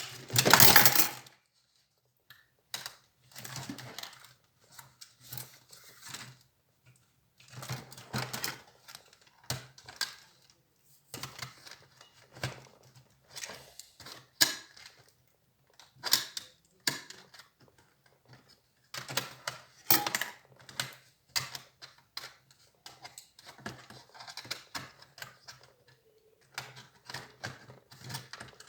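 Irregular clicking, tapping and rattling of small plastic and metal parts handled during the disassembly of an HP Compaq 6910p laptop, with the loudest clatter about half a second in.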